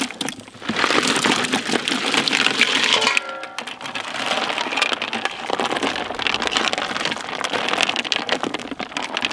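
Ice cubes tipped from a metal bowl into a large aluminium pot of milkshake, a dense rattling clatter and splash, then a metal ladle stirring the ice round the pot with continued rattling and knocking.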